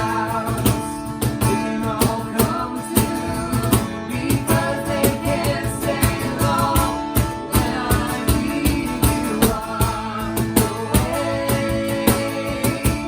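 Worship band music: singing over guitar, with a steady beat.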